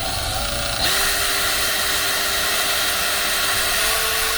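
Electric drill with a 1/16-inch bit running, drilling a pilot hole in the thin sheet metal of a shed door: a steady motor whine that gets louder about a second in and steps up slightly in pitch near the end.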